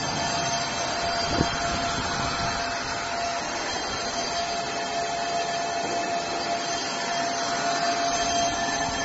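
Brake drum and disc lathe running with a brake drum mounted: a steady machine noise with a constant high tone through it, and one short knock about one and a half seconds in.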